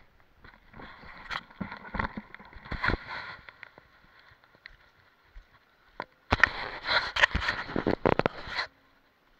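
Handling noise on an action camera: rubbing, scraping and knocks right against the microphone in two spells. The second spell starts about six seconds in, is the louder of the two and cuts off abruptly.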